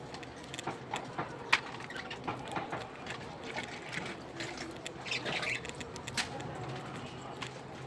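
Budgerigars chirping and squawking, with scattered sharp clicks and taps; the loudest click comes about one and a half seconds in.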